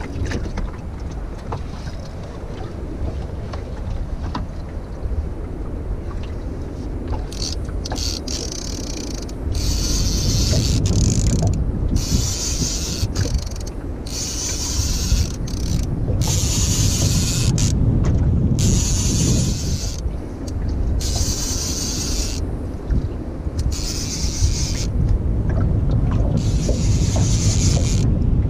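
Small boat underway: a steady low rumble from the engine and hull, with wind buffeting the microphone. From about a third of the way in the rumble gets louder and bursts of hiss come and go every second or two.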